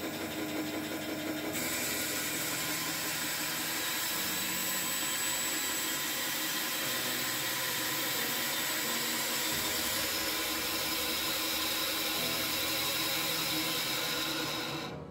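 FABTEC BS 312 woodworking band saw running and cutting through a wooden board, a steady sawing noise of the blade in the wood that stops near the end.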